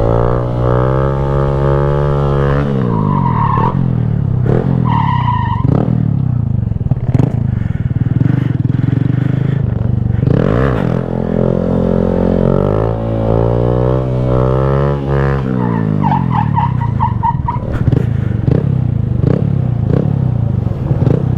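Small single-cylinder Honda Grom 125 motorcycle engine being ridden hard, revving up and dropping back several times as it accelerates and shifts, with a few short high-pitched squeals.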